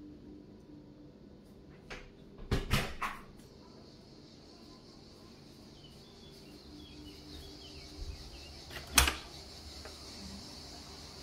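A few sharp knocks and clicks over faint room tone: a short cluster about a quarter of the way in and one loud knock later on.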